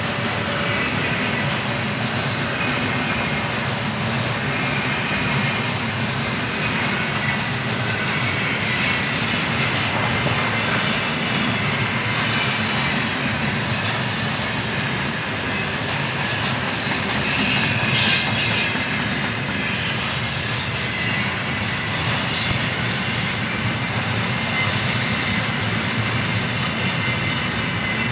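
Freight train of loaded container flatcars rolling past at speed: a steady rumble and rattle of wheels over the rails. A brief high wheel squeal comes about two-thirds of the way through.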